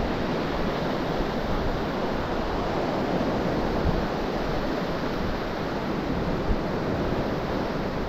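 Surf washing onto the beach with wind on the microphone: a steady rush of noise.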